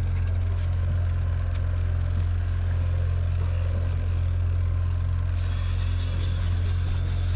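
Boat engine running at trolling speed, a steady low hum. A steady high whine joins about five seconds in.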